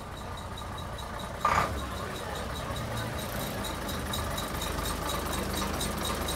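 Bristol LH bus's diesel engine idling with a steady low rumble and a fast, even clatter. About one and a half seconds in there is a single short, loud burst.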